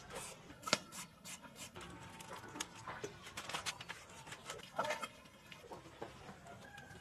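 Food preparation: a knife tapping on a wooden cutting board and utensils clicking against plates, as irregular sharp clicks and taps.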